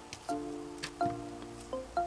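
Background music: a light melody of short plucked notes over held chords.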